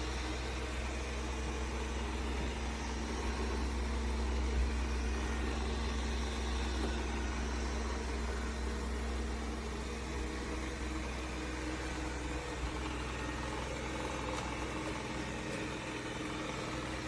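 Robot vacuum running, a steady motor hum.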